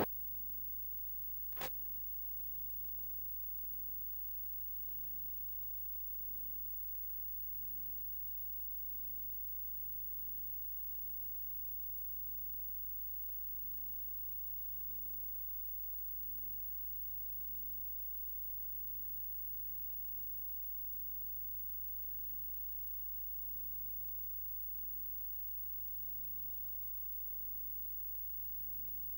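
Faint, steady electrical mains hum with a single sharp click about two seconds in.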